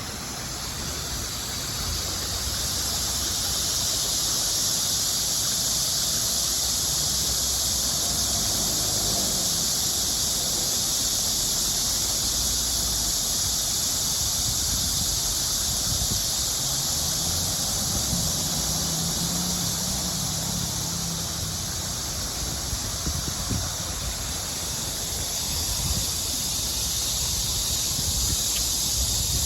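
Stream water flowing steadily: a continuous, dense hissing rush, with a faint low rumble underneath.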